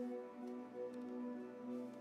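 Background music of held pitched notes.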